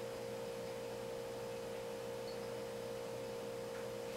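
A steady hum: one clear mid-pitched tone with fainter tones above and below it, unchanging throughout.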